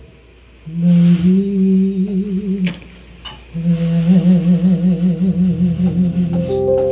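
A lone voice sings two long wordless notes with vibrato, a short pause between them. Near the end the band comes in under it with a low held note and a steady sustained chord.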